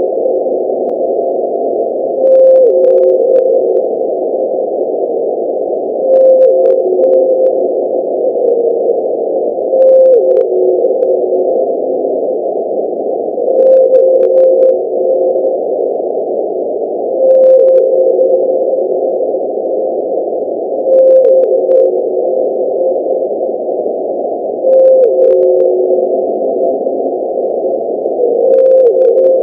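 Homemade blue whale call sound effect: a hissy, low-pitched tone that drops in pitch partway through each call, repeating about every three and a half to four seconds, eight times over.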